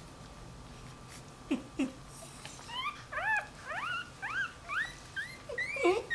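Newborn Dachshund–Jack Russell puppy whining, separated from its mother: after two short low sounds, a run of short, high, squeaky cries, each rising then falling, about two a second.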